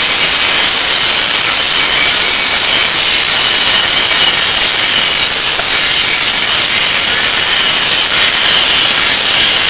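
Angle grinder with its abrasive disc grinding down a weld on a square steel-tube joint: a loud, steady, high-pitched grinding of disc on steel.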